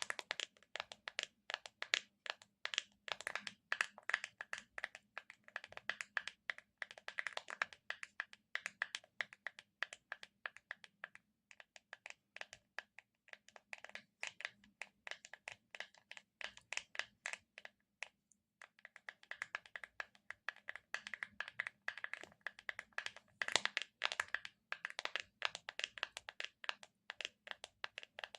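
Close-up sticky ASMR sounds: fingertips tapping and peeling off a tacky surface in a dense run of quick crackles, many a second, with a brief pause about 18 seconds in.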